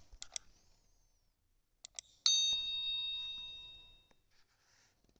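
Subscribe-button animation sound effect: a few light clicks, then two more clicks about two seconds in, followed at once by a bright bell ding that rings and fades over about two seconds.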